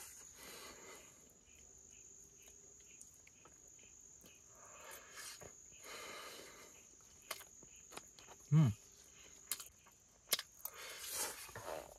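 A person tasting noodles: soft chewing and rustling with a few small clicks, and a short low "mm" about eight and a half seconds in, over a steady high drone of crickets.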